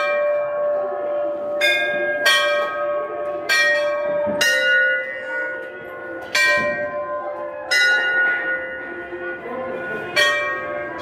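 Temple bell struck by hand again and again, about seven strokes at uneven intervals, each left ringing and overlapping the next.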